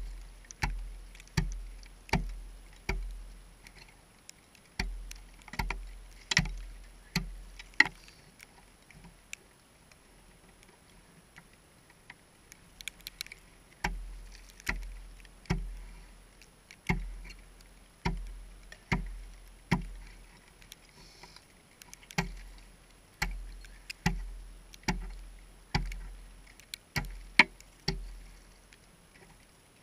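Hatchet chopping at the edge of a hole in the ice to widen it: sharp strikes about one a second, with a break of several seconds in the middle.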